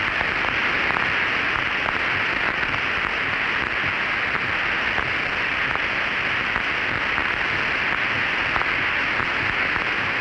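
Steady hiss of radio static on an open, narrow-band air-to-ground voice channel between transmissions.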